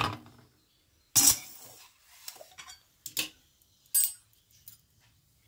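Stainless steel kadai and bowl clinking together as hot herbal oil is poured from the pan into the bowl. There are a few sharp metal clinks, the loudest about a second in with a brief ring, and two smaller ones near the end.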